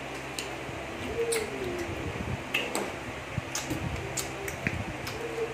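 Close-up eating sounds: people chewing and smacking their lips as they eat with their hands, heard as a scatter of small wet clicks. A brief falling tone comes twice, about a second in and near the end.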